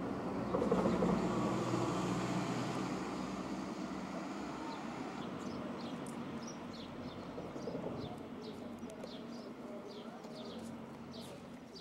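Street sound: a passing motor vehicle's engine hum and rumble, loudest about a second in and slowly fading, then small birds chirping repeatedly from about five seconds in.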